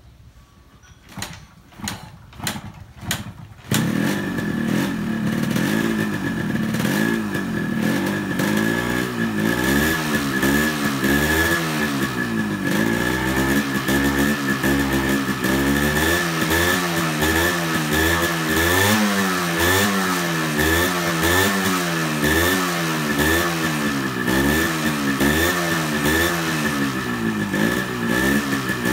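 Yamaha RX 115's air-cooled two-stroke single being kick-started: a few kicks without catching, then it fires about four seconds in and keeps running, the throttle blipped up and down over and over. It does not start on the first kick, which the owner puts down to water in the carburettor from a fresh wash; the engine now carries an unmodified, full-weight flywheel in place of a lightened one.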